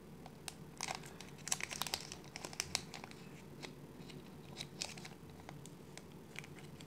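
Small, thin, clear plastic bag crinkling in faint, scattered crackles as fingers work to open it. The crackles come thickest between about one and three seconds in and again around five seconds.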